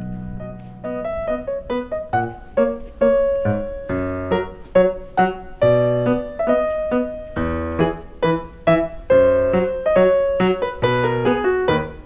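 Background piano music: a gentle melody of single notes and chords, each struck and left to ring.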